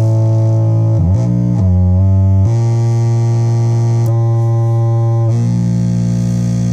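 Metsään DIRTY DRONE [anarchy] vers2.1, a three-oscillator triangle-wave drone synth, giving a loud, buzzy drone. About a second in, the pitch dips and wobbles, then jumps between steady notes a few times.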